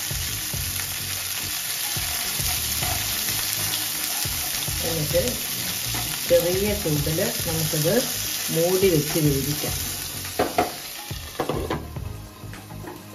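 Yardlong beans sizzling in hot oil in a nonstick frying pan while being stirred with a wooden spatula. A few knocks near the end as a glass lid goes on, after which the sizzle is suddenly muffled.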